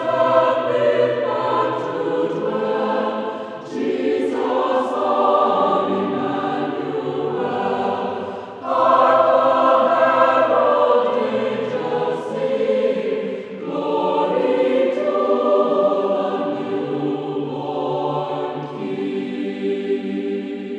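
Choir singing to music in long held phrases of a few seconds each, beginning to fade out at the very end.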